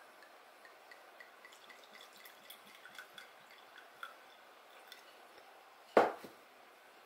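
Sherry poured from a bottle into a glass wine glass: faint trickling with small splashes and glugs. About six seconds in comes one loud, sharp knock, with a smaller knock just after.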